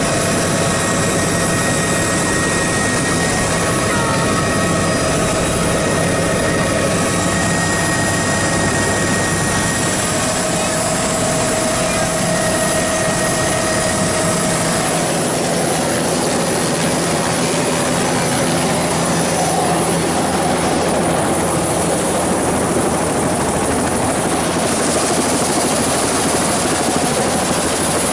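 Helicopter running on the ground with its rotor turning: a loud, steady rush of engine and rotor noise. A faint steady whine sits over it and fades about halfway through.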